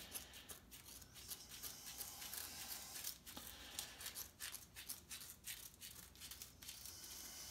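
Scissors snipping through abrasive sharpening paper to trim it to a sharpening wheel: a faint run of short, irregular cuts and clicks.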